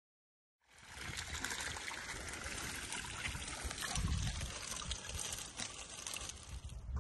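Water streaming and dripping off a cast net as it is hauled up out of a pond, starting about a second in after a moment of silence.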